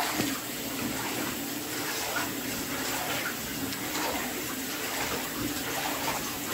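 Bath tap running steadily into a filling bathtub, with a hand swishing through the water to check its warmth.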